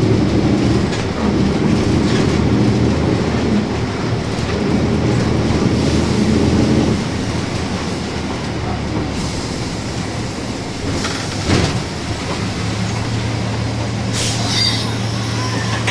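Mercedes-Benz 1724L bus running with its differential whining very loudly, the whine easing off about seven seconds in. A sharp knock comes about eleven and a half seconds in, then a steady low drone and a short hiss near the end.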